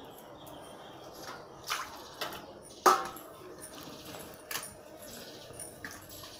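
Stainless steel bowls and plates clinking and knocking as they are handled, with one louder metal clank about three seconds in that rings briefly.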